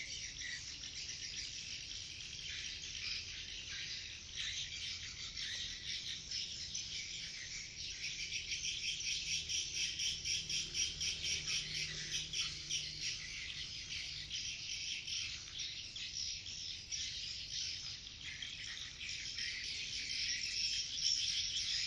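Swiftlet calls: a dense, continuous high-pitched twittering chirp, swelling a little in the middle and again near the end.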